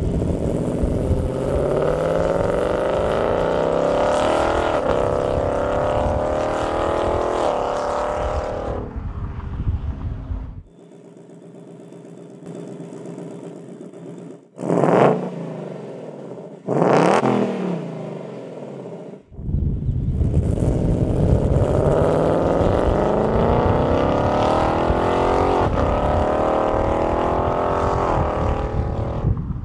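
2018–2023 Ford Mustang GT's 5.0-litre V8 through its factory active exhaust. The car accelerates hard away with the pitch climbing and dropping at two upshifts, then idles with two sharp revs in Sport exhaust mode about 15 and 17 seconds in. It then makes a second hard pull away with two more upshifts.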